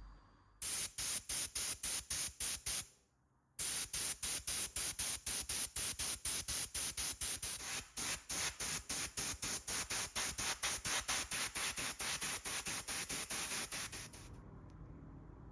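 Spray hissing in rapid, regular short pulses, about five a second, with a brief break about three seconds in.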